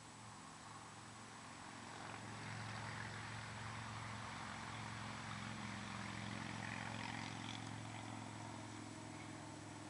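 A distant engine drones steadily, growing louder over the first few seconds and then easing off a little, as if passing by.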